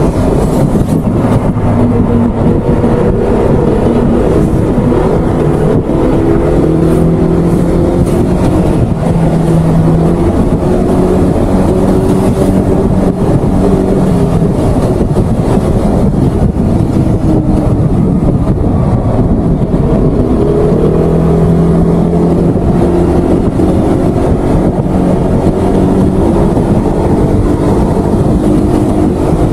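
Maxi-scooter engine running at road speed under heavy wind rush on the microphone; its pitch rises and falls slowly as the throttle changes.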